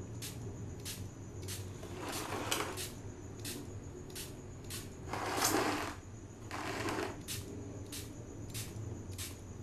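Hand trigger spray bottle squeezed over and over, short spritzes about one or two a second, with three longer, louder hissing bursts in the middle.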